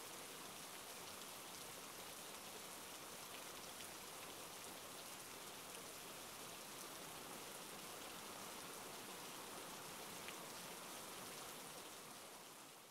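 Steady rain falling, an even soft hiss of many drops, fading out near the end.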